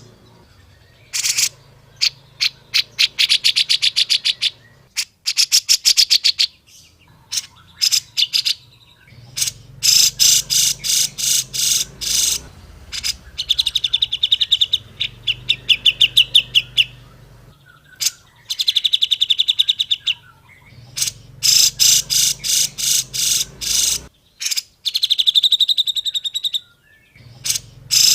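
Grey-cheeked bulbul (cucak jenggot) singing: phrases of rapid chattering notes and fast buzzy trills, with short pauses between them.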